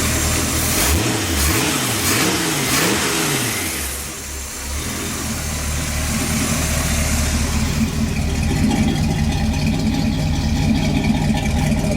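Chevy 283 small-block V8 in a 1966 pickup, blipped three times in quick succession and then settling into a steady idle.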